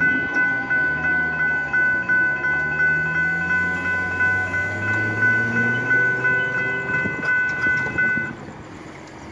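Railroad crossing bell ringing in a rapid, even rhythm while the crossing signals flash and the gate arms lift after the train has cleared; it cuts off about eight seconds in.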